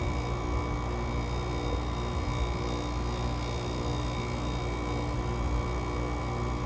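GE AWS05LSK1 5050 BTU window air conditioner running steadily, its Samsung rotary compressor humming under the fan's airflow noise while head pressure builds during a cold start at 15°F.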